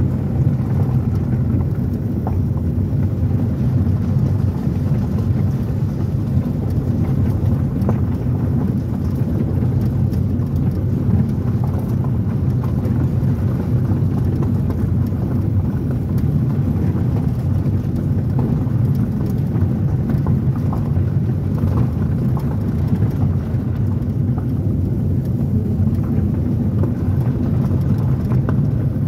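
Road noise inside a vehicle's cabin while it drives on a gravel road: a steady low rumble of tyres and engine, with scattered small clicks of gravel under the tyres.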